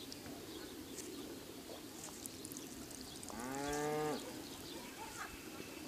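A single low, drawn-out animal call, rising at its start and then held for just under a second, about three seconds in. Faint high chirps sound on and off behind it.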